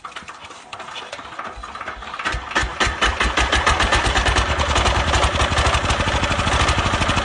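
An engine-driven machine starting up and running, its rapid even pulsing growing louder over the first three seconds, then holding loud and steady.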